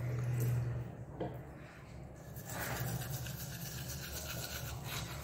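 Teeth being brushed with a toothbrush: rapid back-and-forth scrubbing strokes that begin about halfway in. A steady low hum sounds in the first second.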